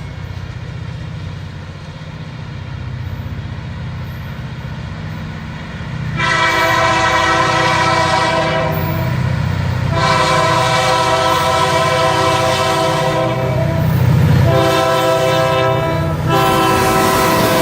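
Diesel locomotives of a Missouri & Northern Arkansas train rumbling as they pass. About six seconds in, the locomotive's air horn starts blowing and sounds in long blasts with short breaks, nearly without pause, for the rest of the time.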